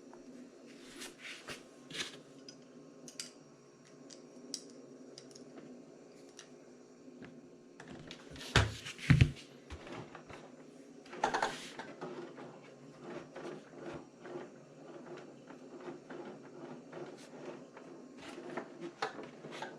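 Handling sounds of RC truck wheels being fitted by hand: scattered light clicks of plastic and metal parts, two sharp knocks about eight and nine seconds in and another near eleven seconds, then a run of small quick ticks.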